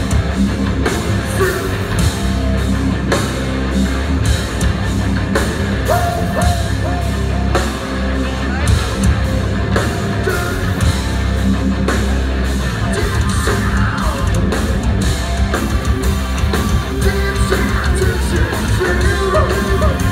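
Live heavy metal band playing loud, with distorted electric guitars, bass and a steady drum beat.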